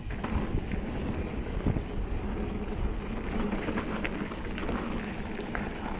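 Mountain bike rolling along a dirt trail: steady tyre rumble mixed with wind buffeting on the microphone, with a few faint clicks.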